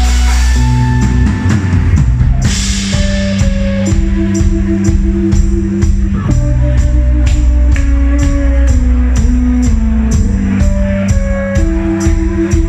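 Live rock band playing: electric guitars over long held chords that change every few seconds, with drums and a tambourine striking a steady beat.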